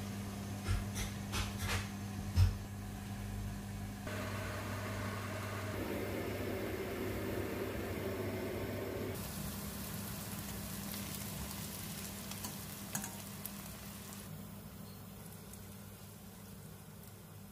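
Kitchen cooking sounds: a soft sizzle of food frying in a steel pan over a steady low hum, with a few light knocks and clinks of utensils in the first couple of seconds. The sound fades toward the end.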